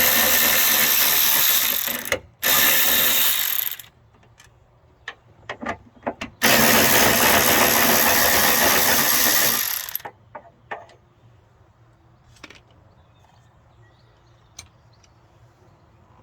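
A handheld power tool runs in three long bursts, the last the longest, followed by scattered light clicks and taps of metal parts being handled.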